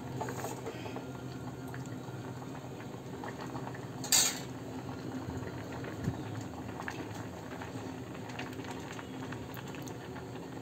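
Thickened rice kheer bubbling as it simmers in a stainless-steel pot, with a steel ladle stirring it and one sharp clank of the ladle against the pot about four seconds in.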